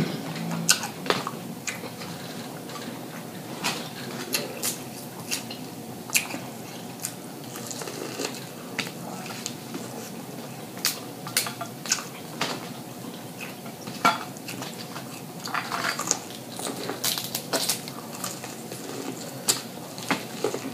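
Close-miked eating at a table: chewing and lip smacking, with scattered sharp clicks and clinks of crab shells and utensils against plates.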